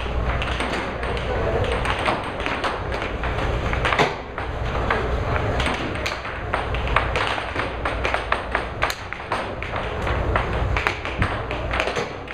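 Air hockey puck and mallets clacking against each other and off the table's rails, a scatter of sharp knocks with the loudest about four seconds in, over a steady low hum from the table.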